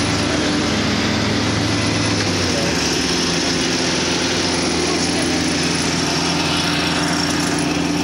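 Compact farm tractor's engine running steadily as the tractor is put in gear and driven off.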